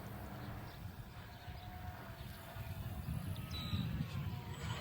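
Wind buffeting the microphone, with the faint whine of a remote-control airplane's motor in flight, falling in pitch near the end.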